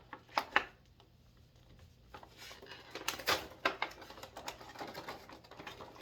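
Action figure packaging being handled and opened: two sharp clicks about half a second in, then from about two seconds on a run of irregular clicks, taps and rustles, loudest a little past three seconds.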